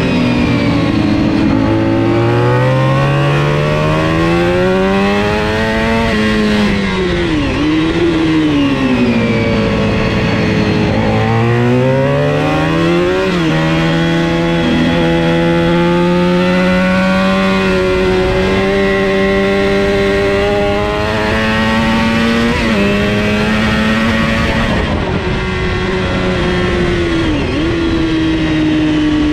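400 cc supersport racing motorcycle engine running hard at high revs. Its pitch climbs steadily for the first several seconds, falls sharply and climbs again a couple of times through the bends, then holds fairly steady with a few small steps and one drop near the end.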